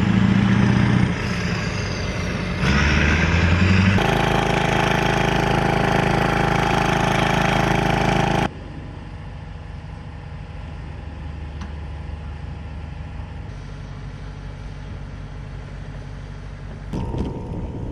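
Diesel engines of heavy eight-wheeled missile launcher trucks running, a steady deep engine drone that shifts in pitch and loudness at each change of shot. About halfway through it drops sharply to a fainter, distant engine hum.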